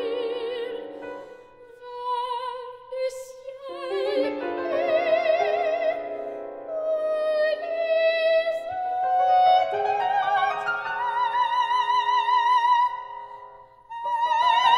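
A classical female voice singing high, sustained notes with wide vibrato, accompanied by grand piano. The music drops away briefly about two seconds in and again near the end before the voice comes back in.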